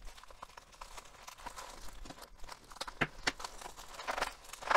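Plastic packaging crinkling and rustling in the hands as a bubble-wrapped parcel is pulled from a plastic mailer bag. Sharper crackles come about three seconds in and again near the end.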